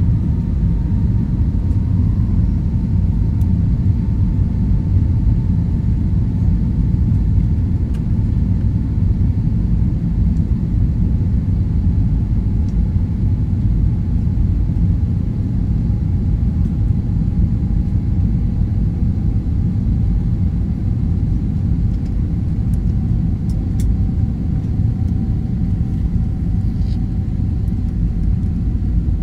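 Airliner cabin noise in flight: a steady low rumble of the aircraft's engines and the airflow, with a faint whine that slowly falls in pitch.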